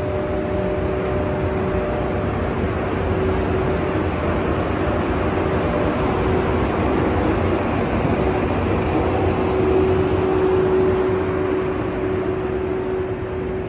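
EF81 electric locomotive pulling out and passing close by: a steady running hum with two held tones over the rumble of its wheels on the rails. The higher tone drops out about halfway through, and the sound swells slightly near the end.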